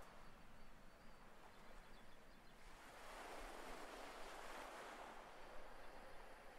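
Faint, slow breath: a soft rush of air that swells from about three seconds in and fades near the end, over near silence.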